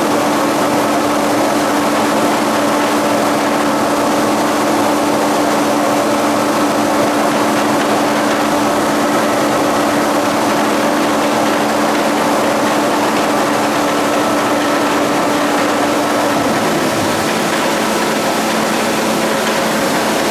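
A 52-inch King vertical boring mill running under power, a loud steady machine hum. Late on, one tone in the hum drops out while the rest keeps running.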